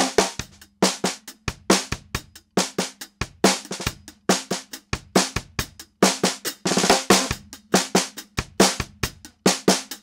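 Raw drum-kit groove recorded with a single Shure SM57 microphone and no EQ or processing: a kick drum with no front head, a heavily dampened Ludwig Acrolite snare and tape-dampened hi-hats playing a steady beat. The sound is thin and lacking quite a bit in the low end.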